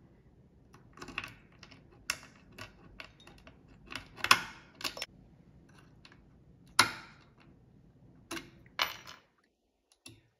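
Irregular sharp metal clicks and clacks from a small Abus padlock being speed-picked open with a pick and tension wrench, then unclipped and a brass Abus padlock clamped into the vise in its place.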